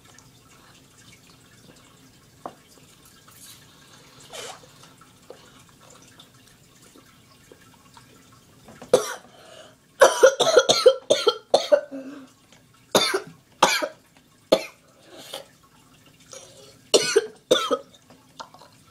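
A boy coughing in a run of loud, harsh bursts that starts about halfway through, after several quiet seconds.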